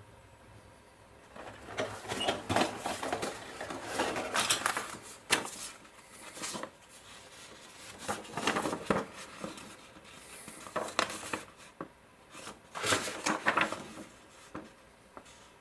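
A cardboard model-kit box being handled and opened, and a paper instruction sheet rustling as it is taken out and unfolded, in irregular bursts of crinkling.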